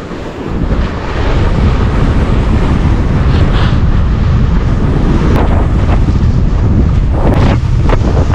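Strong wind buffeting an action camera's microphone as a kite-skier moves fast over snow: a loud, low rumble that grows louder about a second in, with a few short rushes near the end.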